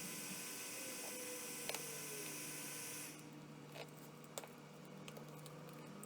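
A steady low electrical hum with hiss over it; the hiss drops away about three seconds in. A few faint, light clicks of a tool prying a phone's cracked screen glass away from its buttons.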